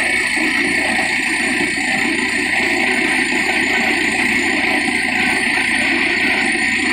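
Truck-mounted borewell drilling rig running: a steady, loud roar with a strong hiss as compressed air blows rock dust up out of the bore.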